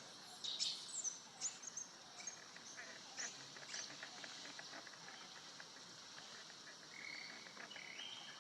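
Several short, high-pitched animal chirps and squeaks in the first few seconds, then a few briefly held high tones near the end, over a steady outdoor background hiss.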